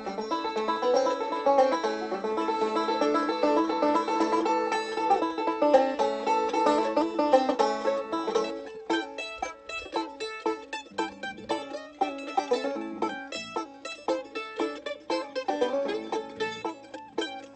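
Acoustic bluegrass band playing an instrumental break: rolling banjo picking over the other strings, then about halfway through the sound thins out to a sparser lead of short plucked notes.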